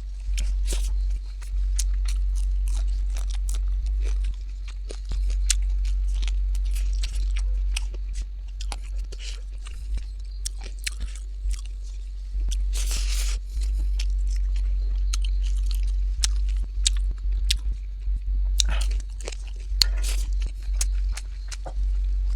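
Close-up chewing and biting of food, with irregular crunches and wet mouth clicks, over a steady low hum.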